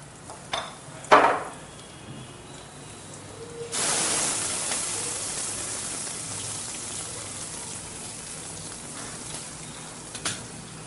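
Food sizzling in hot oil in a pan on the stove, starting suddenly about four seconds in and slowly dying down. Two short clanks of kitchen utensils come before it, and a small click near the end.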